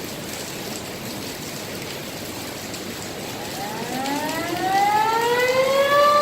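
Dam-discharge warning siren winding up over a steady rushing noise: about three and a half seconds in, its wail starts low and rises in pitch, levelling off into a steady tone near the end. It warns that the dam is releasing water.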